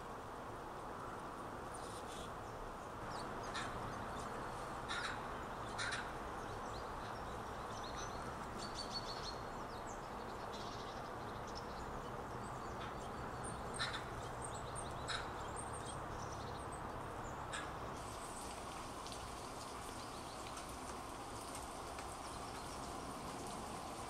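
Birds calling over a steady outdoor background hiss: a handful of short harsh calls scattered through, and a few faint high-pitched chirps.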